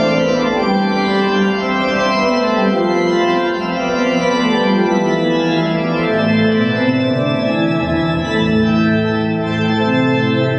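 Church organ playing a solo passage of sustained chords, with low bass notes coming in about six seconds in.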